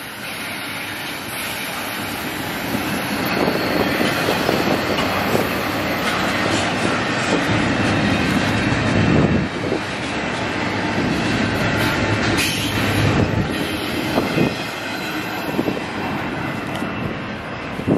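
Double-stack intermodal freight train's container well cars rolling past close by: a steady rumble and rattle of steel wheels on rail, with scattered knocks over the rail joints.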